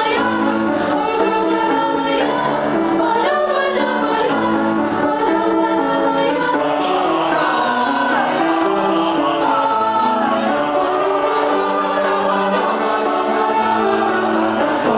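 A choir singing sustained, changing chords, recorded live.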